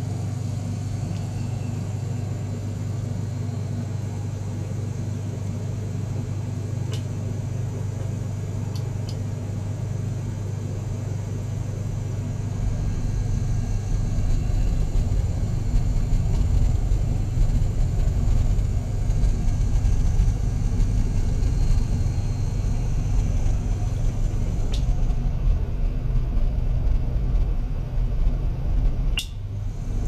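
Small liquid-circulation pump running with a steady low hum as it pumps water through silicone tubing. About twelve seconds in it grows louder and rougher, with a deeper rumble. A few faint clicks.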